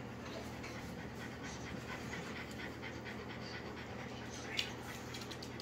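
A dog panting faintly and steadily, with one short, louder sound about four and a half seconds in.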